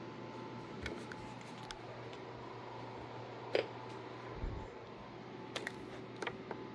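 A few scattered light clicks and taps over a low steady hum; the hum stops about four and a half seconds in.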